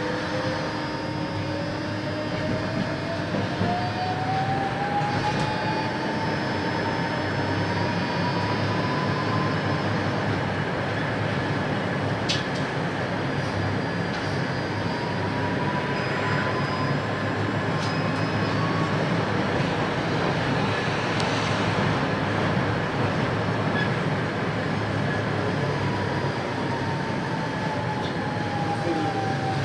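Tatra T6A5 tram running, a steady rumble under the electric traction whine. The whine rises in pitch as the tram accelerates over the first ten seconds, rises again in the middle, and falls near the end as it slows. A few sharp clicks come in the middle.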